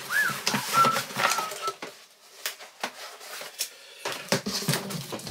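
Cardboard packaging being handled: a small box and a flat cardboard sheet sliding, tapping and scraping on a large shipping box, with sharp knocks and a rustle of box flaps toward the end. A few thin, high, whistle-like tones sound in the first two seconds.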